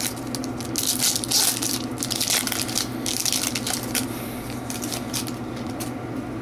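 Trading card pack wrapper being torn open and crumpled: dense crinkling and crackling, loudest in the first half, then lighter crackles as the cards come out.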